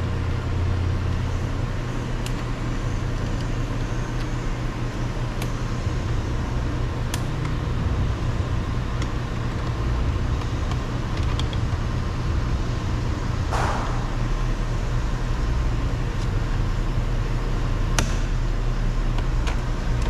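Steady low rumble throughout, with a few scattered light clicks and one short scrape of plastic door-trim pieces and a screwdriver being handled.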